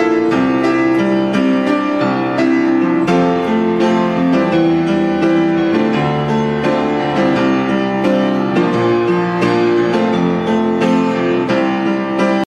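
Ringtone music: a keyboard melody over chords at a steady level, cutting off suddenly near the end.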